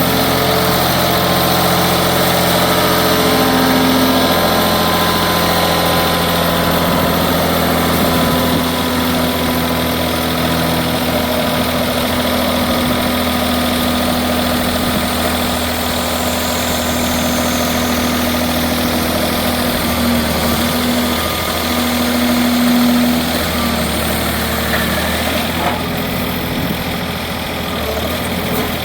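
Tire baler's hydraulic power unit running: a steady mechanical hum with a low tone that shifts in pitch and strengthens now and then, about two-thirds of the way through, as the machine works.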